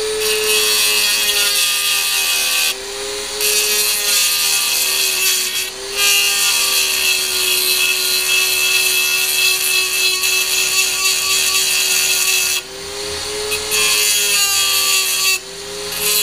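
Dremel rotary tool with a small grinding stone grinding rivet heads off stainless steel trim: a steady high motor whine under a harsh grinding hiss, which breaks off briefly about four times as the stone comes off the metal.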